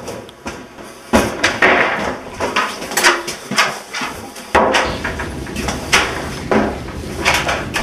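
A run of irregular knocks and thuds, the heaviest about a second in and again just before five seconds in, with quicker knocks through the second half.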